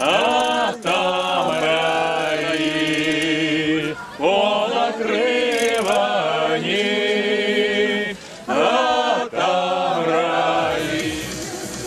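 A mixed Cossack folk choir, men's and women's voices together, singing a cappella in long held phrases with short breaks between them, trailing off near the end.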